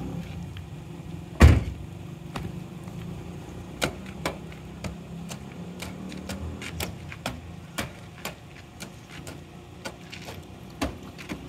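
Puppies suckling from their mother: a scatter of short wet smacking clicks at an irregular pace. One louder knock comes about a second and a half in, over a steady low hum.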